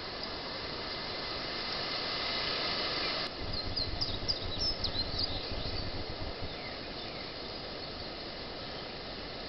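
Woodland ambience through a trail camera's microphone: a steady hiss of insects, with a quick run of bird chirps about three to six seconds in. Over the chirps runs a low, uneven rumble.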